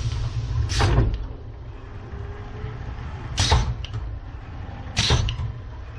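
E&F Miler Hi-Miler roller coaster train slowing on the brake run into the station. A low rumble fades about a second in, and three short, sharp sounds come from the brakes and track, spaced one to two seconds apart.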